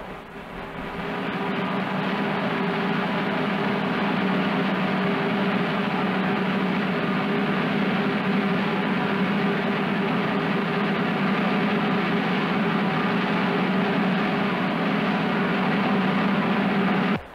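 Roller-skate wheels rumbling steadily on a wooden stage floor as a skater spins continuously on the spot, swinging his partner around him.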